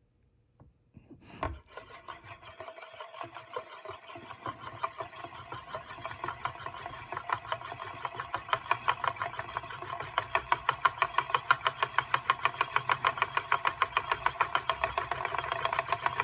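Euler's disk set spinning with a knock about a second in, then rolling and wobbling on its base with a rapid whirring rattle. The rattle grows steadily louder and its pulses come faster as the disk tilts lower.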